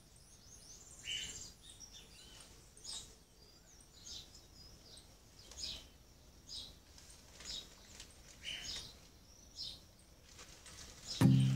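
Small birds chirping: short high calls roughly once a second over a faint steady hiss. Guitar music comes in suddenly near the end.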